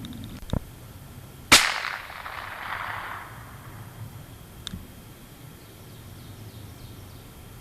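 A soft knock, then about a second and a half in a single sharp .22 LR rimfire rifle shot that echoes away over about a second and a half.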